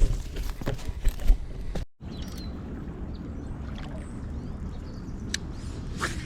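Rustling and clicking of handling noise, then after a sudden cut about two seconds in, a steady low rushing of outdoor creek ambience.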